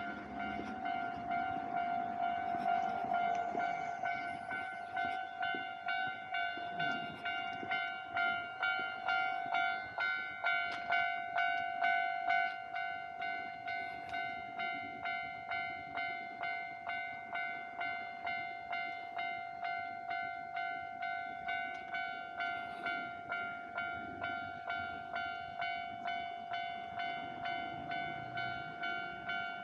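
Japanese railway level crossing alarm ringing its repeated electronic bell tone, about two strikes a second, as a train passes the crossing. The bell is louder for the first twelve seconds or so, then drops suddenly to a lower level and keeps ringing.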